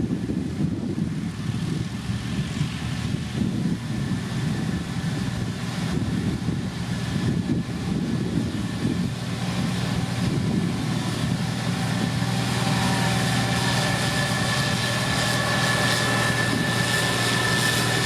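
Engine of heavy road-building machinery running under steady load, its low drone building and evening out over the second half as a steady high whine comes in.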